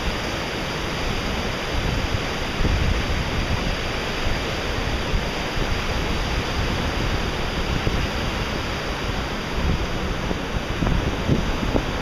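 Ocean surf breaking and washing up a sandy beach: a steady roar of waves.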